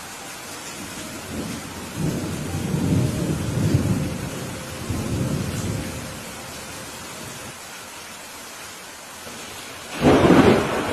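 Steady rain with thunder: a long rolling rumble starting about a second and a half in and fading by about six seconds, then a sudden loud thunderclap near the end.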